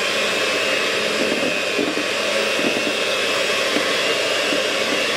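Perfezza electric hand mixer running steadily with a high motor whine, its beaters whisking thick chocolate sponge batter in a stainless steel bowl to smooth out the lumps.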